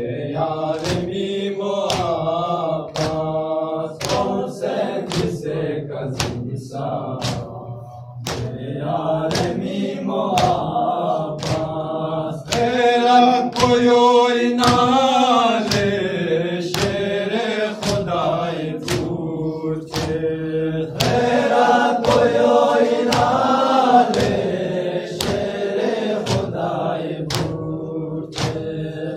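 Young men chanting a Balti-language noha, a Shia lament, led at a microphone with others joining in. Underneath it runs a steady beat of about two sharp slaps a second from the mourners beating their chests (matam) in time. The chant grows louder a little under halfway through.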